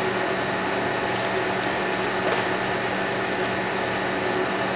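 Steady machine hum and hiss, with a few faint clicks.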